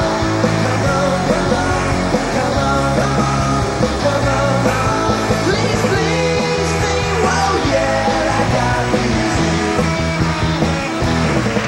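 Power-pop rock band playing live, with singing over the band.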